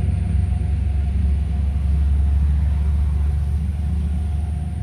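Steady low rumble of road traffic going past, with a faint hum over it.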